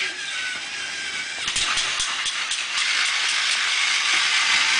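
Thomas toy train running along its track: a steady whirring hiss, with a run of quick, even clicks, about four a second, in the middle.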